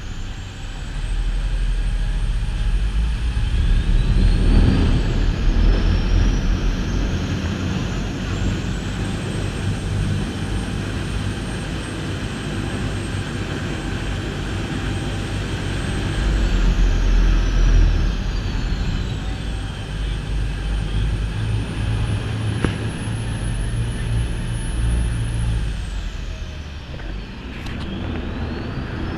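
A boat's engine running under way, pulling away with a steady low rumble that grows louder about a second in, over the churning water of its wake. A high whine rises and falls slowly in pitch several times.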